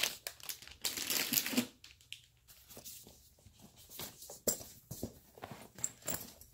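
Clear plastic wrapping crinkling loudly as plastic screw bins are handled, then lighter rustles and small knocks as the fabric tool bag is handled and opened.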